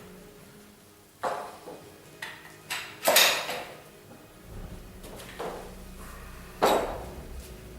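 Metal parts of a paintless dent repair stand being handled and fitted together: a series of about six clanks and knocks, the loudest about three seconds in and again near the end.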